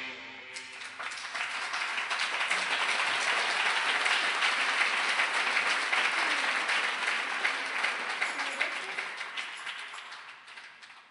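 Audience applauding at the end of a live song: the clapping starts about half a second in as the last notes die away, swells, holds for several seconds, then thins out and stops near the end.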